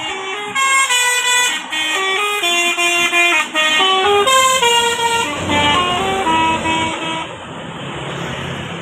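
A bus's multi-tone 'telolet' Basuri air horn playing a fast stepping melody of held notes for about seven seconds. Below it runs a low vehicle rumble that comes up as the tune ends.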